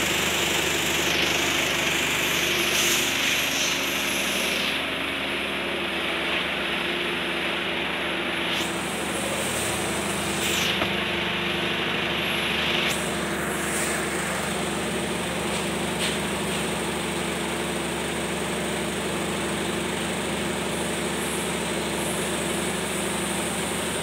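Stainless-steel vibro sifter running steadily: a constant machine hum and rattle from its vibrating drive while fine powder pours out of the discharge spout.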